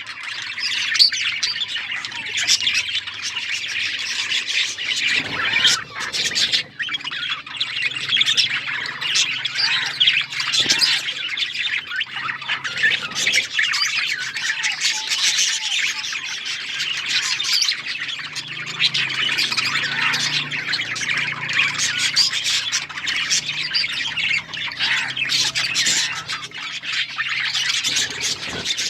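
A flock of budgerigars chirping and squawking together in a continuous dense chatter, many calls overlapping.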